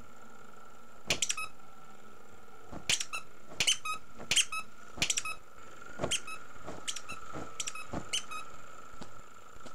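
A run of short, sharp, high squeaks, about a dozen in irregular clusters starting about a second in, over a faint steady high tone.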